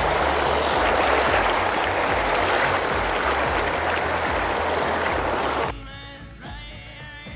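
Shallow river water rushing over stones around a mountain bike being wheeled through a ford, with a low rumble underneath. It cuts off suddenly near the end, giving way to quiet background music.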